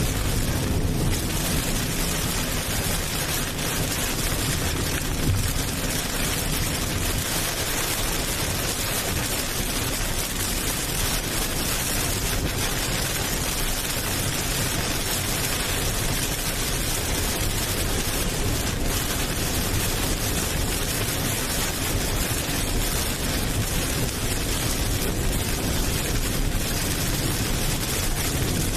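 Steady, even rushing noise that spreads across the whole range from low to high, with no distinct events or tones.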